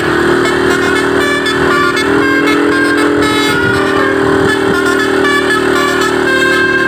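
Bus telolet 'Basuri' musical horn playing a tune: sustained low horn tones that step up in pitch about two seconds in and back down about a second later, with quick higher notes changing over them.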